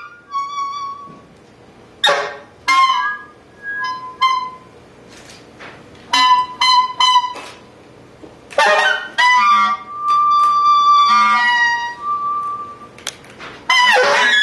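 Improvised wind-instrument playing: short, sharp-edged notes mostly around one pitch, broken by pauses, with a few falling, bent notes and one longer held tone after the middle.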